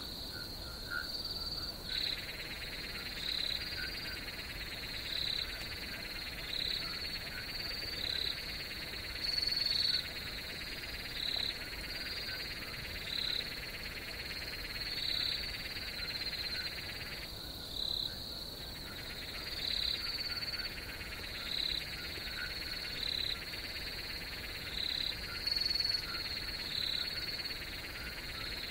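Night pond ambience: crickets trill steadily, with a louder chirp about once a second. Over them a chorus of frogs calls, coming in about two seconds in and pausing briefly a little past the middle.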